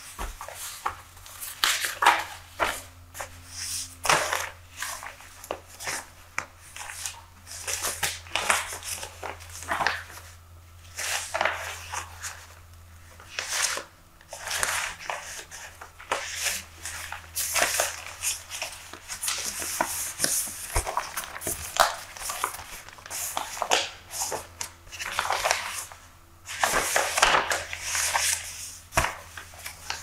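Newspaper pages being turned and handled, crisp rustling and crinkling in repeated bursts with short pauses between.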